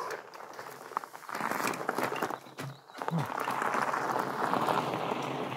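Pole Taiga fatbike's wide tyres rolling over a gravel trail: a steady crunching hiss with scattered clicks of stones, getting louder about a second in and again about three seconds in.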